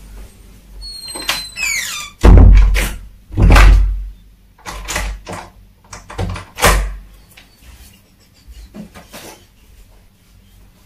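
A run of loud, heavy thuds and knocks, the heaviest about two and three and a half seconds in, dying down to faint knocks after about seven seconds.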